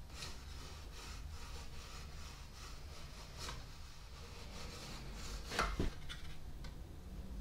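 Brass dent work on a Besson trumpet bell: a dent tool rubbing in repeated strokes against the brass to push it back to round. There is one louder brief squeal of metal on metal, falling in pitch, about five and a half seconds in.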